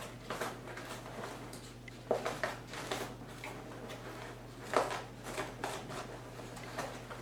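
Irregular scrapes, rustles and knocks from cutting and pulling away seat foam and upholstery fabric by hand, over a steady low hum.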